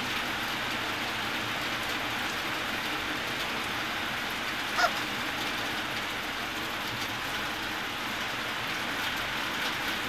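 Steady, even hiss with one short high-pitched sound about five seconds in.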